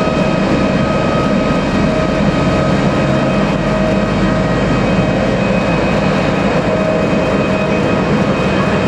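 Jet engines of a Boeing 767-300ER airliner running steadily and loudly: a dense rumble with a steady high whine.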